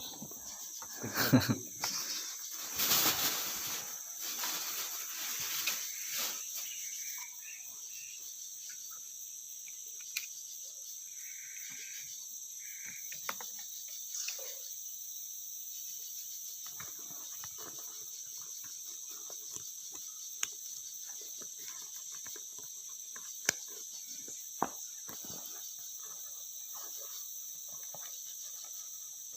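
Steady high-pitched chorus of crickets or similar insects. Rustling and knocking handling noises come over the first several seconds, and a few sharp clicks are scattered through the rest.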